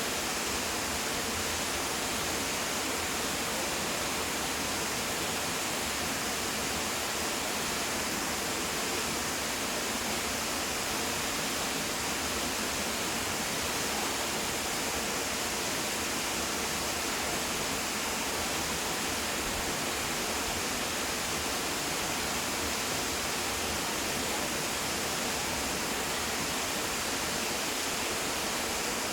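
High Falls waterfall pouring steadily: a constant, even rush of falling water with no breaks or changes.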